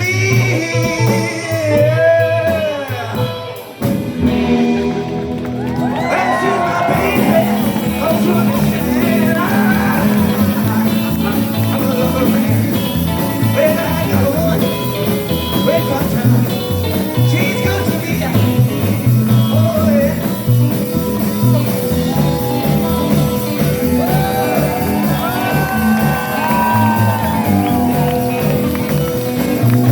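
Live rockabilly band playing an instrumental break, with short vocal cries over the opening seconds. The band thins briefly about four seconds in, then comes back full.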